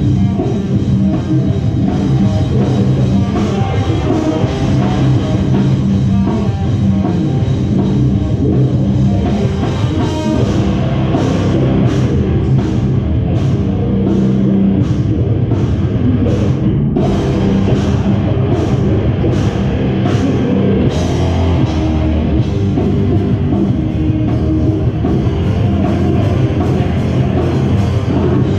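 Metalcore band playing loud and live, with distorted electric guitars over a drum kit. In the middle there is a run of evenly spaced cymbal crashes, about two a second.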